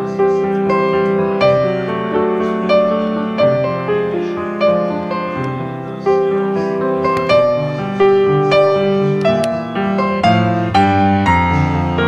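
Background piano music: notes struck at an even pace, about one and a half a second, each ringing and fading.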